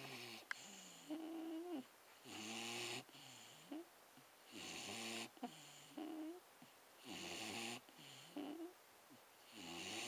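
Staffordshire bull terrier snoring in its sleep. Each breath, about every two and a half seconds, brings a rasping snore followed by a short wavering, whistling whine, four or so breaths in all.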